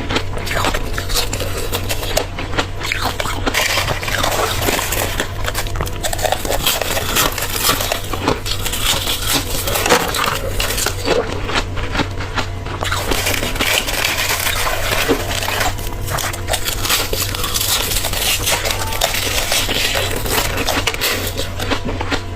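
Close-miked crunching and chewing of powdery frozen freezer frost: a dense, continuous run of crisp crackles and crunches, over a steady low hum.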